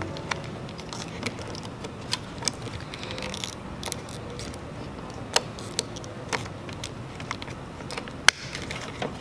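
Plastic trim on a car's trunk lid being pressed into place by hand, giving scattered small clicks and creaks, with the sharpest click near the end.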